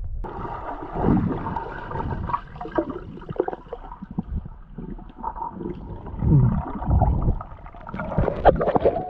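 Muffled underwater sound of a river picked up by a camera held under water: gurgling water and bubbles, with low rumbles and scattered knocks as the swimmer moves, and denser clicks and knocks near the end.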